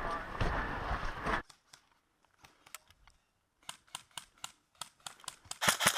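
Scuffling movement noise that cuts off after about a second and a half. Then a string of sharp single clicks of airsoft gun shots, a few a second, and near the end a rapid full-auto burst of airsoft fire at about eight shots a second.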